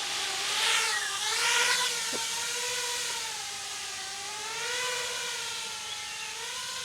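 DIY FPV quadcopter's motors and propellers whining in flight, the pitch rising and falling as the throttle changes, with a louder rushing surge about a second in.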